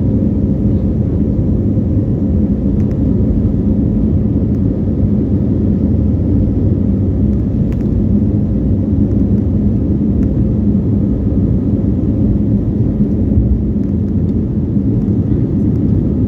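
Steady low cabin rumble of an Airbus A321neo's engines and airframe while the jet moves on the ground, with a faint even hum over it. The thrust holds constant, with no spool-up.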